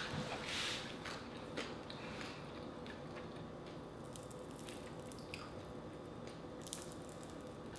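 Faint, scattered small clicks and soft squishes of dried fish being picked apart by hand and eaten.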